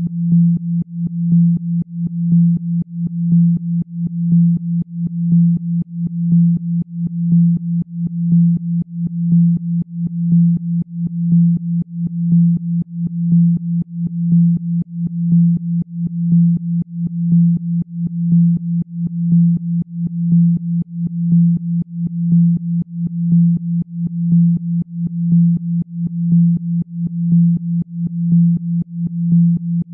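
Synthesized low pure tone, a Rife-style healing frequency, held at one pitch and pulsing in loudness about once a second.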